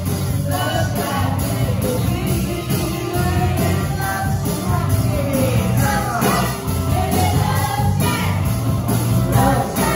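Live rock band playing: singing over drums, electric guitars and keyboard, with a steady beat.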